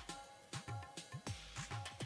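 Quiet electronic background music with a steady beat of deep kick drums that drop in pitch, light ticking percussion and held synth tones.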